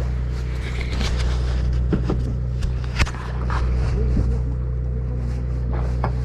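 A fishing party boat's engine running steadily, a low hum with a thin steady tone above it, with scattered light clicks and one sharp knock about three seconds in.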